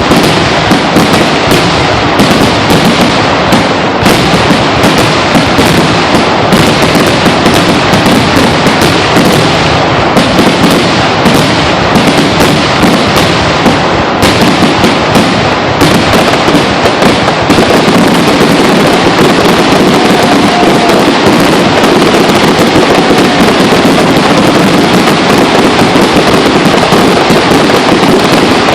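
Fireworks going off at close range, very loud, shell bursts following each other so quickly that they merge into a near-continuous crackling barrage. It grows denser and steadier about two-thirds of the way through.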